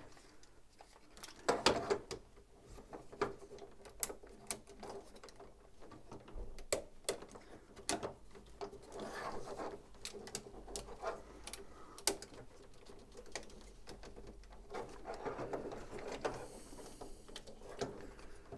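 Hard plastic panels of a Devil Saviour DS-04 Smash transforming robot figure clicking and rubbing as they are folded and pushed into place: irregular sharp clicks and snaps with softer scraping of handling in between.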